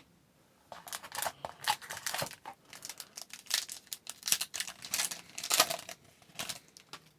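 Foil trading-card pack wrapper being torn open and crinkled by hand, a run of irregular rustles and rips.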